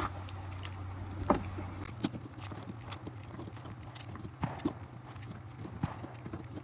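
Cartridges being pressed one at a time into a 17-round Glock pistol magazine: a series of irregular sharp clicks, roughly one every half second to a second, over a steady low hum.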